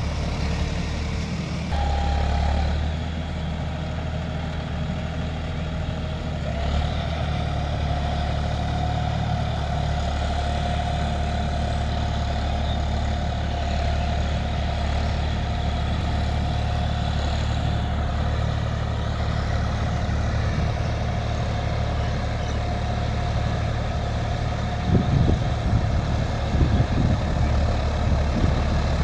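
John Deere 5310 tractor's three-cylinder diesel engine running steadily as it works through a muddy paddy field, with a steady whine over the engine note. Near the end, as the tractor draws close, a run of irregular knocks and thuds comes in over the engine.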